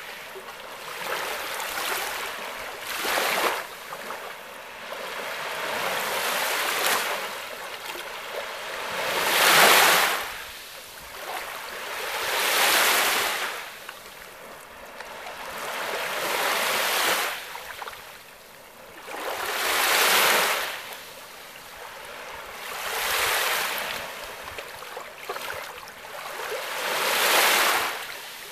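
Small lake waves breaking and washing up onto a sand beach, about eight swells in a row, each rising and falling back every three to four seconds; the one about ten seconds in is the loudest.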